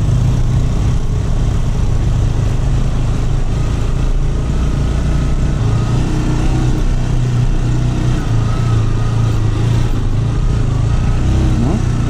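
Motorcycle engine running steadily at low road speed on a rough dirt track, an even drone with no pauses.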